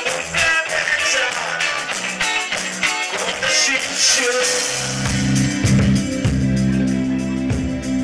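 Live rock band playing: drum kit with cymbal hits, guitar and bass, and a singer. About halfway through, a low chord is held steadily under the cymbals.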